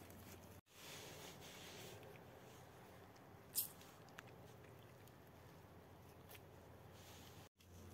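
Near silence: faint scuffling of puppies nosing at a sandal, with one brief sharp click about three and a half seconds in.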